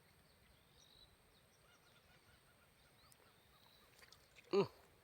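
Quiet outdoor background with faint, soft chirps, then one short honk-like call shortly before the end.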